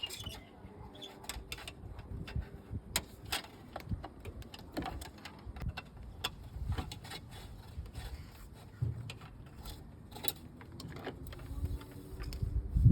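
Irregular clicks, taps and dull knocks of hands and tools handling plastic trim and wiring in a car during an install.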